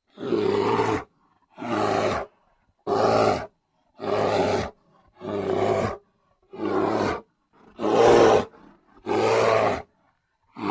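Brown bear roaring over and over in a steady rhythm: about eight deep roars, each just under a second long, about a second and a quarter apart.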